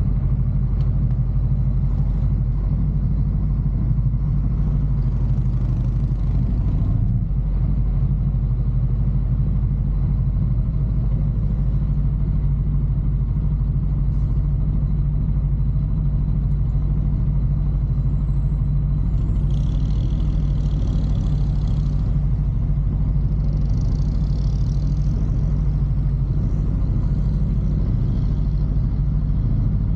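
Sport bike engine idling steadily while the motorcycle waits at a traffic light. Brief higher hissing noises come in about two-thirds of the way through.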